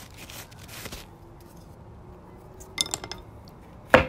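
Metal parts and tools handled on a work surface: faint scraping, then a few ringing metallic clinks about three seconds in and a sharp metal knock near the end.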